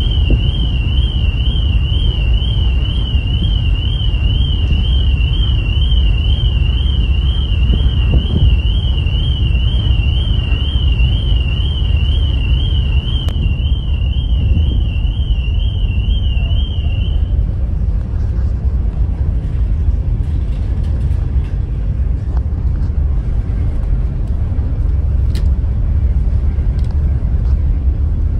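Steady low rumble of wind and the ferry underway on its open deck. For the first seventeen seconds or so a high warbling tone wavers up and down a few times a second over it, then stops.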